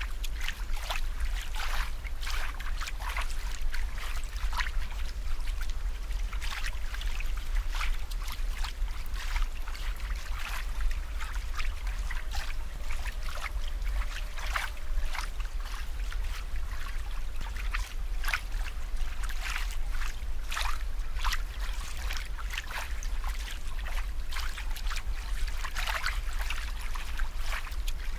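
Water trickling and splashing in quick, irregular little drips and bubbles, over a steady low hum.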